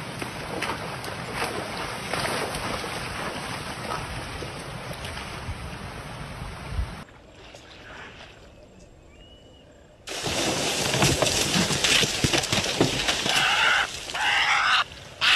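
Rushing floodwater with splashing for about seven seconds, then a brief hush. A sudden loud burst of splashing follows as a crocodile lunges at a wildebeest at the water's edge, and raised voices come in near the end.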